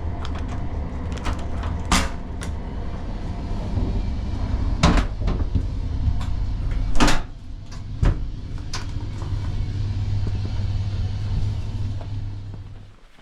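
Inside a moving passenger train carriage: a steady low rumble with several sharp knocks and clatters, the loudest about two, five and seven seconds in. The rumble cuts off suddenly near the end.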